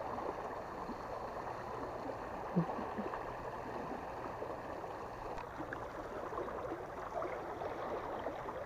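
Steady rush of river water churning through a water gate.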